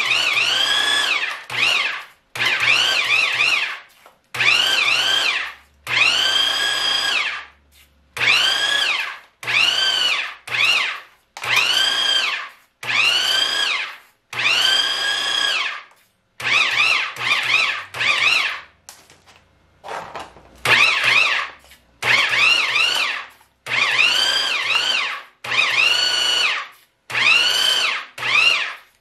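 Central Machinery portable electric pipe threader threading a clamped pipe, its motor run in about twenty short bursts as the trigger is pulsed. Each burst lasts about a second and whines up in pitch as the motor spins up, holds, then falls away as it stops.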